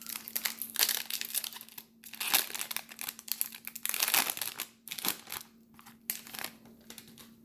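Plastic wrapper of a trading-card pack crinkling as it is handled and opened, in a run of irregular crackles that thins out after about six and a half seconds.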